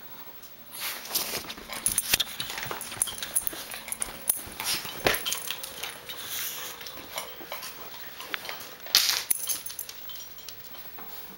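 Small dogs scuffling right against the camera: long fur rustling and rubbing over the microphone, with scattered scratchy clicks and a dog whimpering faintly. The loudest rustles come about two, five and nine seconds in.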